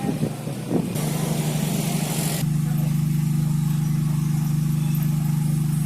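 An engine running steadily close by, a low even hum with a fast regular flutter, growing louder about a second in and again partway through.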